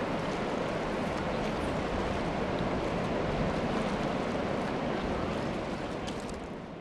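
Steady rush of river water running through a riffle, fading out near the end.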